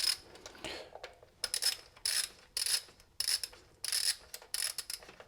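Ratchet wrench with an E14 socket clicking in a series of short strokes, about one every half-second to second, as it backs out the fuel delivery valve on a CP4 high-pressure diesel fuel pump.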